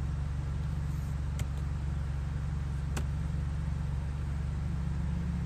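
Hyundai Tucson's four-cylinder engine idling steadily, heard as a low hum inside the cabin, with two faint clicks.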